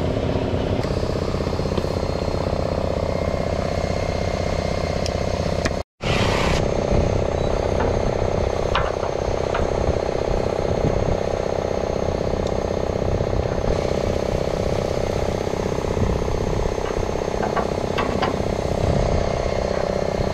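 An engine running steadily at a constant speed, with a few light metallic clicks over it; the sound drops out for a moment about six seconds in.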